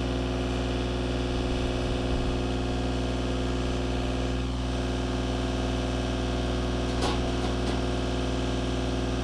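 Isuzu diesel engine of a portable tire baler running steadily, driving the baler's hydraulic piston pump, with an even, unchanging drone. A light click sounds about seven seconds in.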